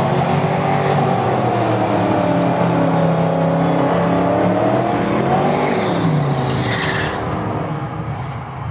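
V8 drag car's engine held at high revs through a burnout, the pitch wavering slightly, then falling away about six seconds in as the throttle is lifted. A short, high tyre squeal follows about a second later.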